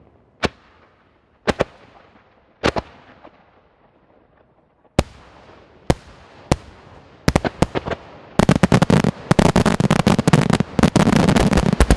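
Aerial firework shells bursting: scattered single sharp bangs for the first several seconds, then coming faster from about seven seconds in and merging into a dense, rapid string of loud bangs near the end.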